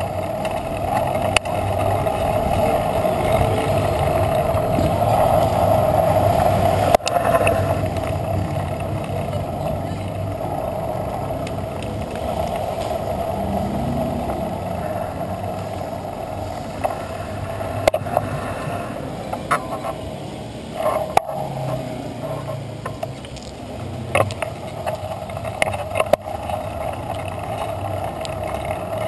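Steady road and wind noise of a bicycle ride on an asphalt street, picked up by a bike-mounted camera, with a few sharp knocks from bumps in the road and low rumbles of passing traffic.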